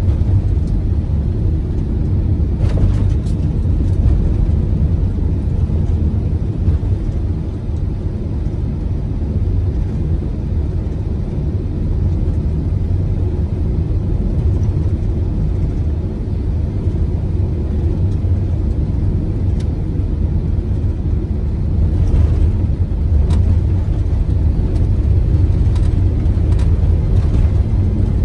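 Steady low rumble of a vehicle driving on a snow-packed road, heard from inside the cab: engine and road noise, with a few faint clicks.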